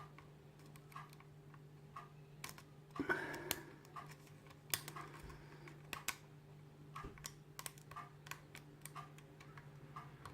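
Light, irregular clicks and ticks of a medium hook pick and homemade tension wrench working the pins of an E.S MP5 mortice lock, with little feedback from the pins. A short breath noise comes about three seconds in.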